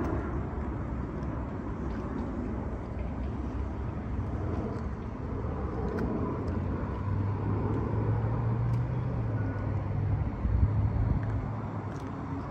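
Outdoor traffic noise with a steady low rumble. A vehicle's engine hum swells about halfway through and fades shortly before the end.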